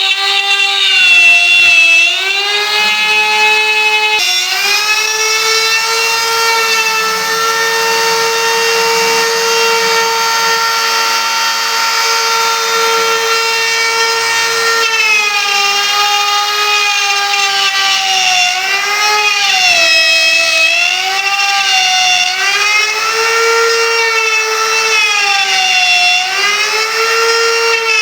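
Electric wood router running at high speed with a steady whine. In the first half its pitch holds; in the second half it sags and recovers again and again as the bit cuts into the wood.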